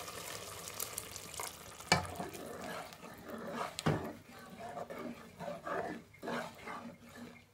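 Meat stock pouring from a saucepan into a pot of blended green pepper sauce, then a plastic ladle stirring the thick sauce. The ladle knocks sharply against the pot twice, about two and four seconds in.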